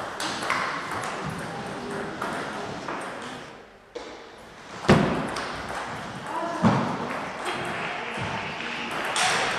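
Table tennis ball clicking on bats and table in quick rallies, with a lull a few seconds in and then a new rally; a loud sharp hit comes about five seconds in and another near seven.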